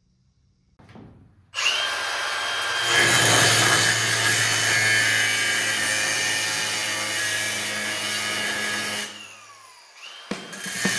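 Cordless angle grinder spinning up and cutting through a seized truck-bed bolt, metal on a cut-off wheel with a steady high whine. It winds down with a falling whine about nine seconds in and starts again shortly before the end.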